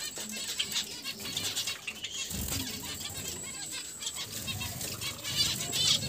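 Small aviary finches chirping, many short high calls overlapping throughout, with a quick run of chirps near the end.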